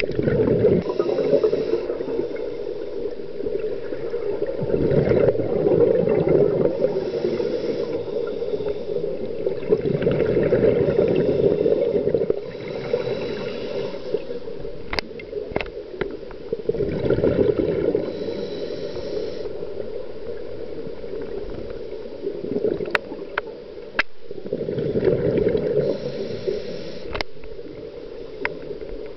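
Scuba diver breathing on a regulator, heard through an underwater camera housing: a hiss on each inhale, then a burst of bubbles gurgling out on each exhale, repeating about every five to six seconds. A few sharp clicks in the second half.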